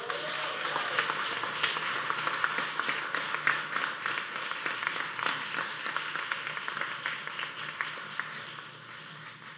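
Audience applauding: dense clapping that gradually dies away toward the end.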